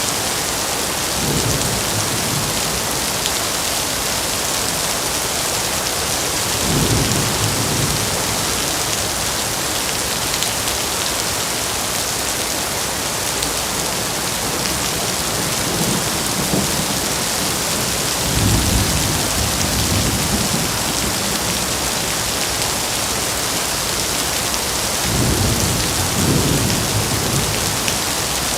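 Heavy rain falling steadily with a dense hiss. Several times it is joined by a short, deep, low rumble that swells and fades within a second or two.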